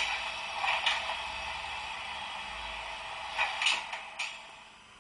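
Sound effects from an H0 model railcar's digital sound decoder, played through its small onboard loudspeaker: a steady hiss with several sharp clicks and knocks, which fades near the end.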